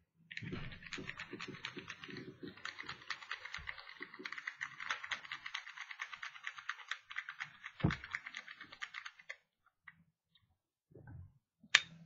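Lock pick raking in the keyway of a Master Lock No. 3 laminated steel padlock under tension: a rapid, dense run of small metallic clicks and scrapes for about nine seconds, with a dull bump partway. Near the end comes a single sharp click, the loudest sound, as the shackle pops open.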